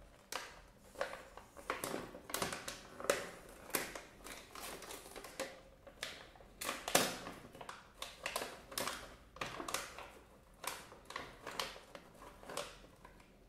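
A glossy plastic snack pouch crinkling and crackling as it is handled, torn open at the top and pulled apart, in many irregular crackles.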